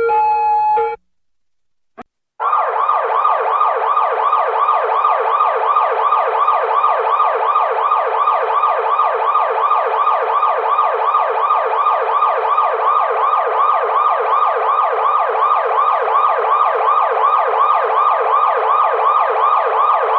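Electronic police car siren in a fast yelp: a rapid, evenly repeating rising wail, several sweeps a second, starting about two seconds in after a brief silence and a click. Before the silence, a different steady electronic tone sounds for about a second and cuts off.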